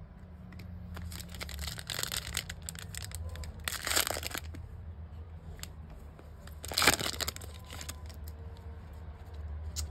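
Foil trading-card pack wrapper crinkling and tearing as it is opened by hand, in crackly bursts; the loudest come about four and seven seconds in.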